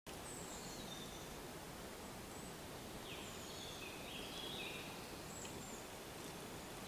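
Woodland ambience: a steady faint hiss with songbirds giving several short, high chirps and whistles, busiest in the middle.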